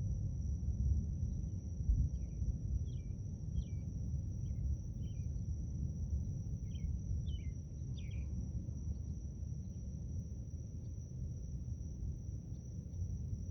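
Outdoor garden sounds: a steady, high-pitched insect trill, and a bird giving a series of short, falling chirps from about two to eight seconds in. Beneath them is a louder low rumble.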